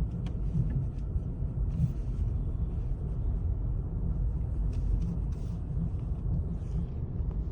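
Car driving on snow-covered roads: a steady low rumble of tyres and engine.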